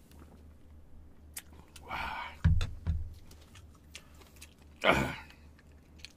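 A breathy exhale after a drink, then a cup set down on the table with two knocks about half a second apart. A second loud breathy exhale comes about five seconds in, with faint clicks of handling between.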